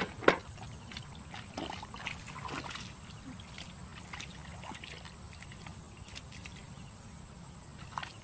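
Small splashes and squelches of hands and bare feet moving through shallow, muddy pond water, with one sharp splash or slap about a third of a second in that is the loudest sound.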